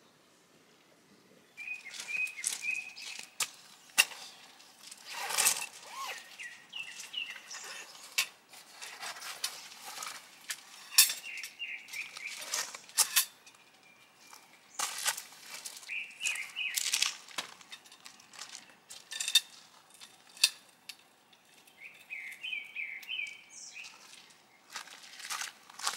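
Songbirds calling in short repeated chirping phrases, over frequent sharp clicks and knocks of things being handled close by, which start suddenly about a second and a half in.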